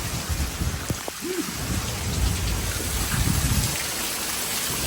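Heavy thunderstorm rain pouring steadily, with low rumbling underneath that swells about two to three and a half seconds in.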